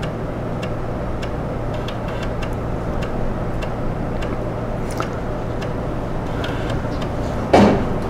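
A running computer's steady whir and hum, with faint irregular ticks from the 3.5-inch floppy drive as it reads the source files off the install disk. A short, louder sound comes near the end.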